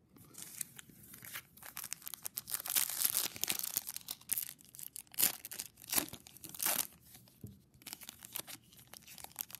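Foil wrapper of a pack of trading cards being torn open and crinkled in the hands: a dense run of crackling rips and crinkles, loudest from about two seconds in, with quieter rustling near the end.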